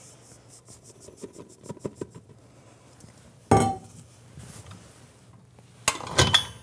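Stainless steel mixing bowls clinking: light taps and scraping as sifted flour is tipped from one steel bowl into a stand mixer's bowl, then a single louder clank about halfway through as the empty bowl is set down, and a metallic clatter at the mixer near the end.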